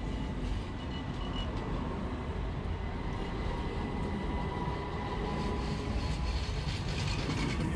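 Modern electric street tram running close by along its rails, a steady low rumble of wheels and running gear with a faint high whine.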